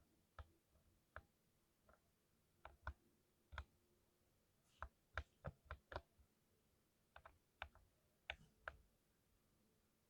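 Mechanical keyboard being typed on: faint, sharp keystrokes coming unevenly, singly and in short runs, with brief pauses between them.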